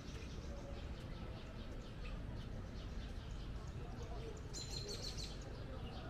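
Small birds chirping over and over, with a brief denser, louder run of chirps near the end, over a steady low outdoor rumble.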